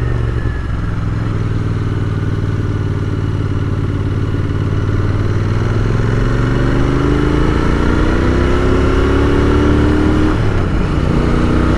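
Royal Enfield Continental GT 650's parallel-twin engine pulling under way, its pitch rising steadily from about halfway through, then dropping suddenly near the end as it shifts up a gear.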